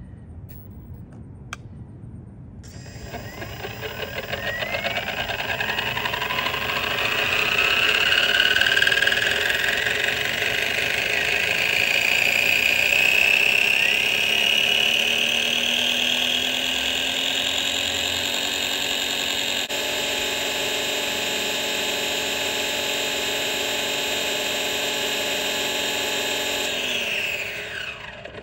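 Electric motor and 3D-printed carbon-fibre PETG main gear of an RC helicopter spinning up with no main blades fitted: a whine that rises in pitch over several seconds, holds steady at running speed, then falls away as the motor spools down near the end.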